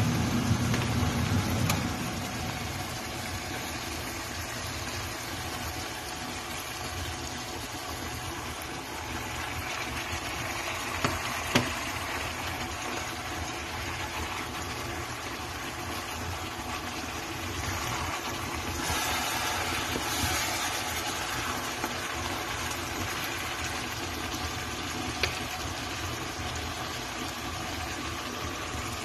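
Steady motor hum, with a wooden spoon stirring chicken and chopped tomatoes in an enamel pot and knocking against it twice about eleven seconds in.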